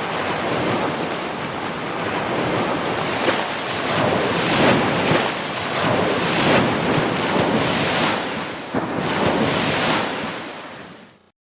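Ocean surf: waves washing in with a steady rush and several louder surges, then fading and stopping abruptly a little before the end.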